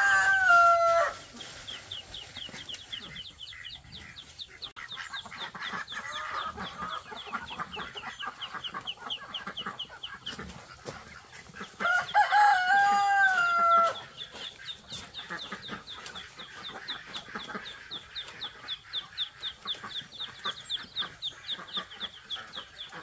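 Rooster crowing: one crow ends about a second in and a second crow, about two seconds long, comes around twelve seconds in. Behind it runs a steady series of rapid high chirps.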